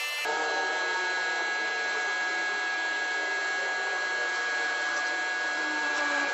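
Compressed-air spray gun hissing steadily as it sprays epoxy primer, with a steady multi-tone whine underneath.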